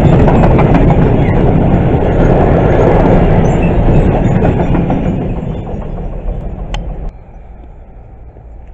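Freight train of covered goods wagons passing close by: wheels rumbling and clacking over the rail joints, fading as the last wagons go by. The sound drops away abruptly about seven seconds in, leaving a quiet steady background.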